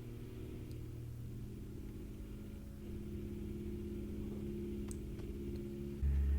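Quiet background score made of sustained low droning tones. A loud, deep humming tone comes in abruptly near the end and pulses slowly.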